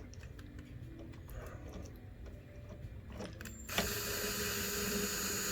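Screwdriver driving slotted screws into the amplifier cabinet, with light clicking and scraping. About four seconds in, a louder, steady whirring sound begins.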